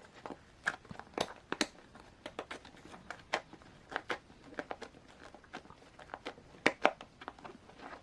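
A rubber 1/10-scale RC crawler tire with a foam insert being worked onto its plastic wheel by hand: faint, irregular clicks and rustles, a few sharper ones about a second in and near seven seconds.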